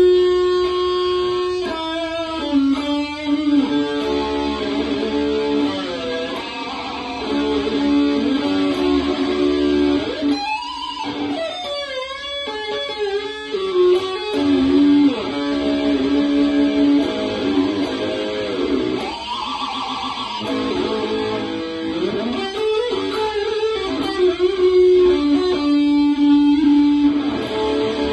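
Ibanez RG-style electric guitar with a mahogany body and GNB humbucker pickups, played as lead lines of sustained notes. Several notes swoop down and back up in pitch from the tremolo arm.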